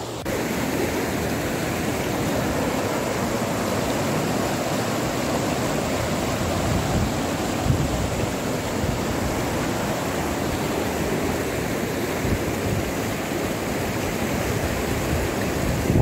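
Waterfall: falling water rushing steadily, an even noise with no let-up.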